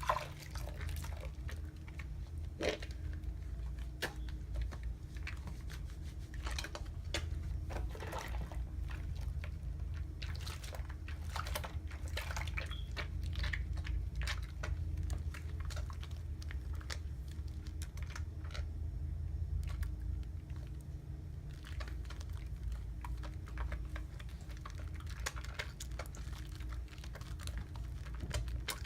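Wet soap lather being worked by hand: irregular squishing and crackling, with a steady low rumble underneath.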